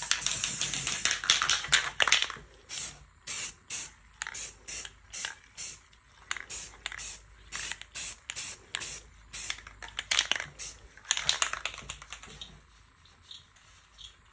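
Aerosol spray paint can spraying: a long hiss for about two seconds, then a quick series of short puffs, about two or three a second, and another longer hiss near the end.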